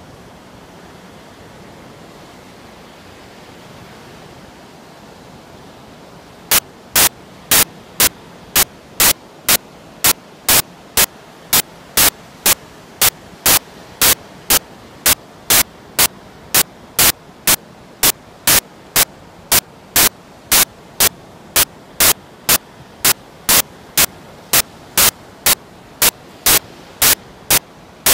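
Steady hiss of surf and wind, then from about six seconds in loud, sharp bursts of static, evenly spaced at about two a second.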